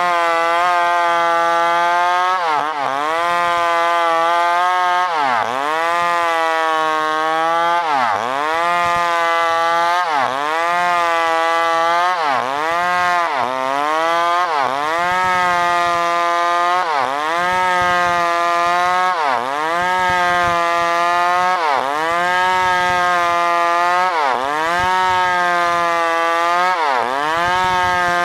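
New West PRO 888 two-stroke chainsaw running at high revs while cutting wood. Its pitch dips sharply and comes back up about every two and a half seconds, as the engine bogs under the load of the cut and recovers.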